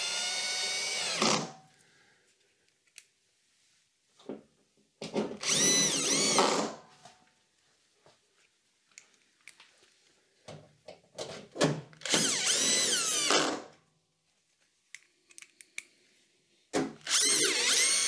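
18-volt cordless drill-driver driving screws into a washing machine's sheet-metal front panel. It runs in four short bursts of about a second and a half each, one ending about a second in and the others near the middle and end, with the motor's whine bending in pitch as each screw draws in. Light handling clicks come between the bursts.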